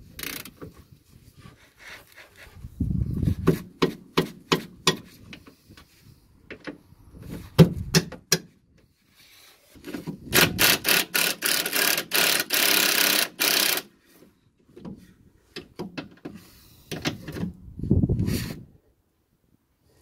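Work on the rear anti-roll bar drop-link nuts: a run of metallic clicks and knocks from a ratchet spanner, then a cordless impact wrench hammering a nut for about four seconds, then more clicks.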